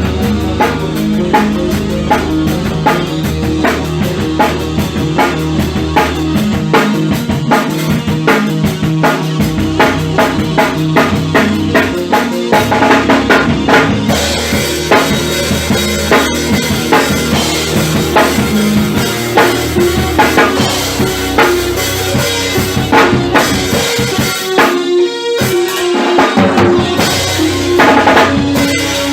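Music: a drum kit keeps a steady beat of kick, snare and rim strikes over sustained pitched instrument notes. The low notes drop out briefly near the end.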